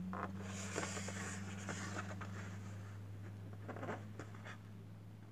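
A toy car's cardboard blister card being handled and turned over in the hands: a hissing rustle of card and plastic for the first couple of seconds, then a few sharp crackles near the middle. A steady low hum runs underneath.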